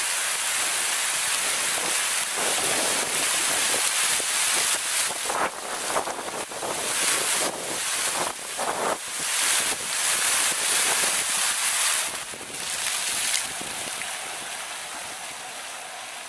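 Ground-level fountain jets spraying and splashing into a shallow pool: a steady hiss, then uneven surges as the jets shoot higher, then dying away as the jets shut off near the end.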